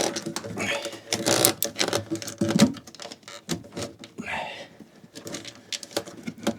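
Irregular clicking, tapping and rustling of hands handling electrical cable and small fittings during cable installation.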